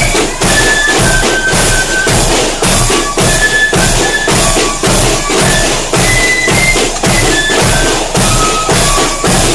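Marching band playing: snare drums and a large bass drum beat a fast, driving rhythm with clashing hand cymbals, under a high held melody that steps from note to note.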